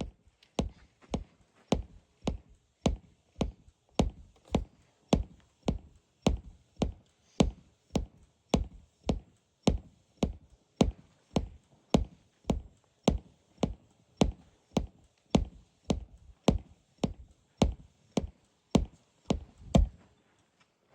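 A live noise-music performance: a steady series of hard, heavily amplified percussive strikes, just under two a second and evenly spaced, each with a deep thud. They stop about a second before the end.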